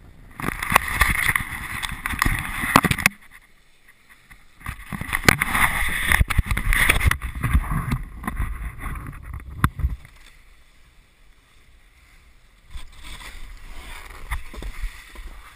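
Snowboard sliding and scraping down hard, tracked snow, with wind rushing over the camera, in three long stretches of noise with short lulls between.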